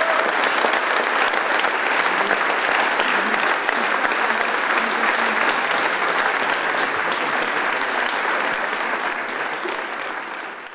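Audience applauding steadily with many hands clapping, fading out at the very end.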